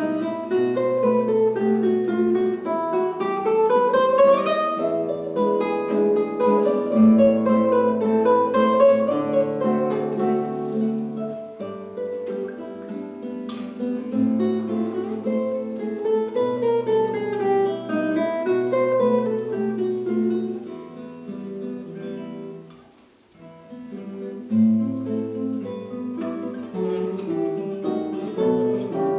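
Two acoustic guitars playing a duet, a flowing plucked melody over sustained bass notes. The music thins out and almost stops about three quarters of the way through, then comes back in with an accented chord.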